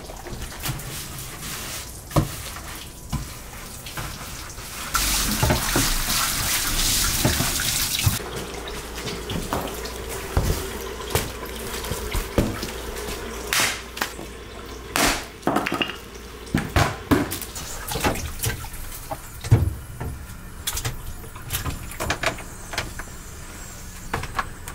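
Water running hard from a tap for about three seconds, then a long run of irregular knocks and clatters as raw meat bones are handled in a cardboard box.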